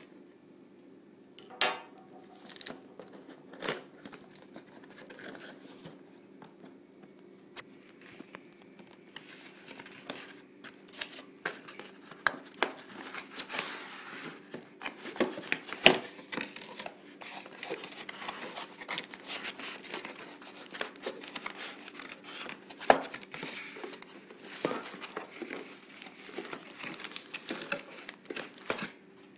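A router's cardboard box and plastic packaging being opened and handled: rustling, crinkling and tearing of cardboard and plastic, with scattered sharp knocks and clicks. A faint steady hum runs underneath.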